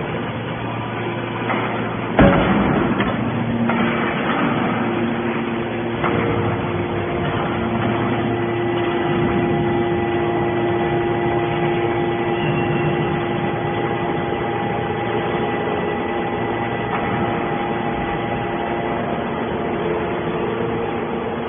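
Hydraulic steel scrap baler running, its pump and motor giving a steady hum with a few held tones. There is one loud metallic clank about two seconds in.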